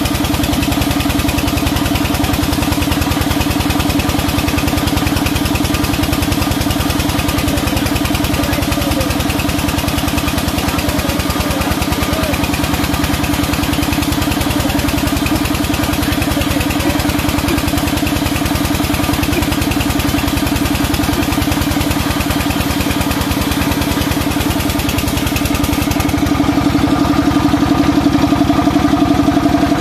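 Sawmill machinery running steadily as a log is fed through the saw. The sound is a dense, even machine drone with a fine pulse, turning a little louder and duller near the end.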